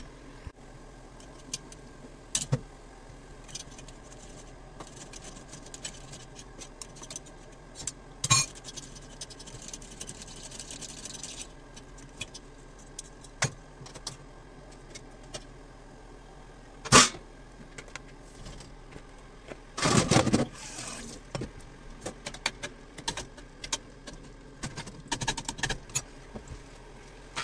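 Scattered clinks, taps and knocks of a stainless steel tray and a pot being handled as pieces of beef tendon and konjac go into the pot, with a longer scraping clatter about twenty seconds in and a run of small clicks near the end.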